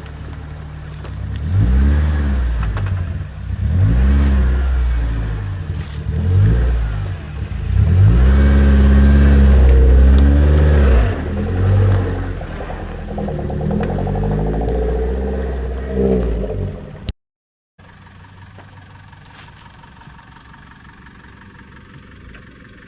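Off-road 4x4 engine revving up and down again and again under load, its pitch rising and falling in repeated swells, loudest about eight to eleven seconds in. About seventeen seconds in it cuts off abruptly, and a much quieter steady rumble follows.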